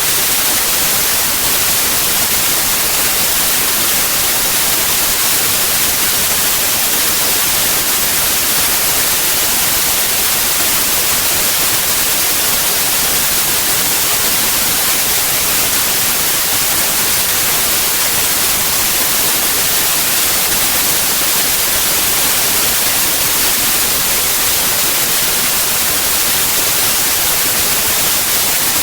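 Steady white noise: an even, unbroken hiss, brightest in the high end, with no changes or other sounds.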